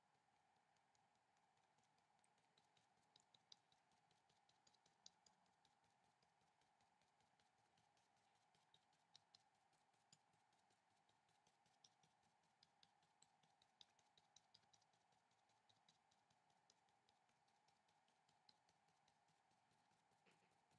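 Near silence with many faint, irregular light ticks of a paintbrush dabbing watercolour onto paper, over a faint steady hum.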